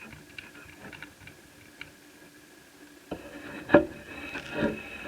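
Hands handling small netbook parts: faint light ticks, then a sharp click a little under four seconds in, followed by more clatter and a second click at the end.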